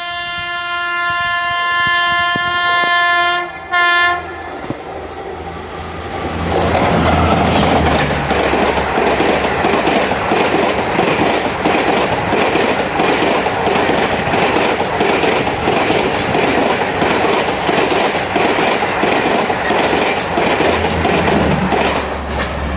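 WAP-5 electric locomotive's horn sounds one long blast and then a short one. The express then passes at speed: a loud steady rush with a rapid clatter of wheels over rail joints, easing slightly near the end.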